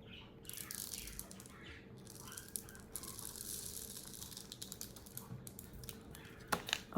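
Faint crinkling and small clicks of a plastic frosting piping bag being squeezed and handled while icing is piped onto a cookie, busiest in the middle of the stretch.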